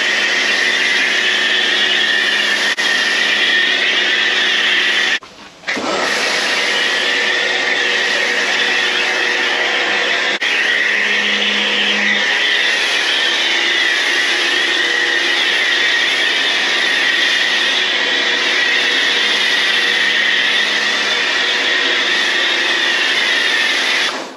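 Kärcher K2 electric pressure washer running steadily with a constant motor whine and spray hiss as it pushes foam through a foam cannon. It cuts out for about half a second about five seconds in, then runs on.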